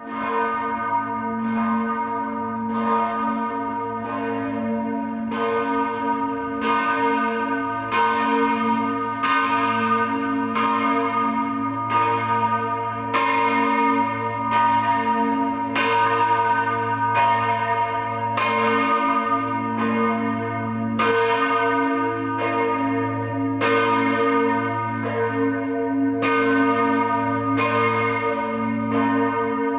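Church bells ringing, struck a little more often than once a second. Each stroke's ringing overlaps the next over a steady low hum.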